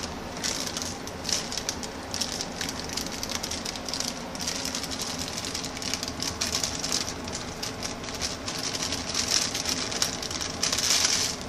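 A plastic bag crinkling and rustling in the hands as dry brownie mix is squeezed and shaken out of it, with dense irregular crackles that are loudest near the end.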